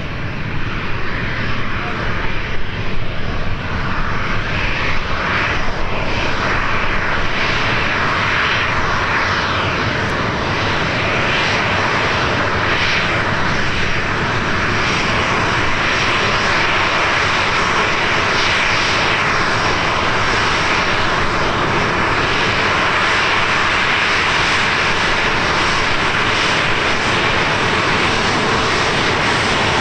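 Jet airliner's engines running, a steady loud rush that grows fuller about seven seconds in, with wind buffeting the microphone during the first few seconds.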